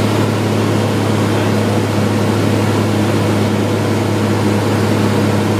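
Cessna 182 Skylane's piston engine and propeller droning steadily, heard from inside the cabin, with one unchanging low hum.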